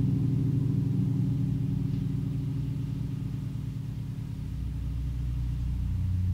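Ambient electronic music: a deep synthesizer drone of low sustained, slowly beating tones. It thins out a little partway through, then swells again near the end.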